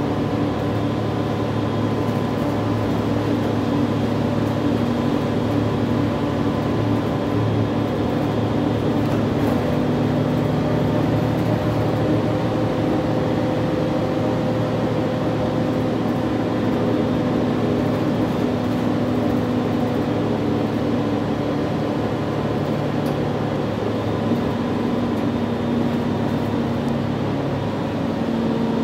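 City transit bus running, heard from inside the passenger cabin while riding: a steady engine and road drone, with a few hum tones that come and go slowly.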